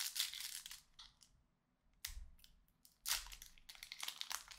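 Foil wrapper of a Pokémon card booster pack crinkling and tearing as hands rip it open, in several crackly bursts with a short lull in the middle.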